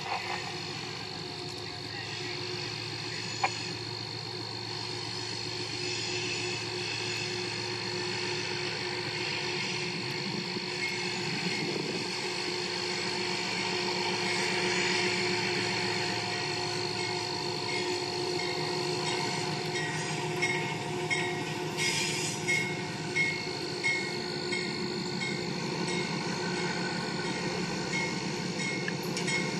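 Toy LEGO train's electric motor whirring with a steady high whine as the locomotive runs along plastic track, slowly growing louder as it approaches. About two-thirds of the way through comes a run of light clicks from the wheels on the track.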